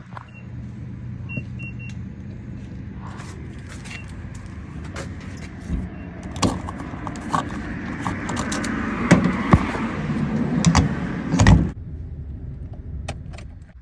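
A vehicle running, heard from inside, with a steady low hum and scattered clicks and rattles. From about halfway a rushing noise builds and then cuts off suddenly near the end while the hum carries on.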